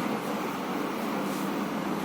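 Steady background noise with a faint constant low hum, like a fan or distant traffic; no handling clicks or knocks.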